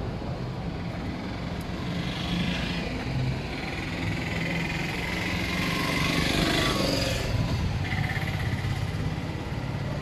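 Street traffic: vehicle engines running and passing along the road, a steady mix of motor noise.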